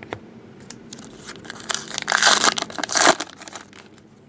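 Crinkling and tearing of a trading card pack's wrapper, rising to a loud crackle about two seconds in and stopping after about a second and a half, with lighter handling rustles around it.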